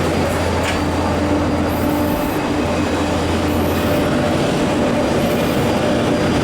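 Steady vehicle interior noise: an even rumble with a strong low hum and a few faint steady tones.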